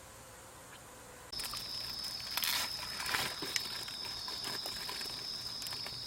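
Wood fire crackling and popping, with a steady high-pitched tone running behind it. Both start suddenly about a second in.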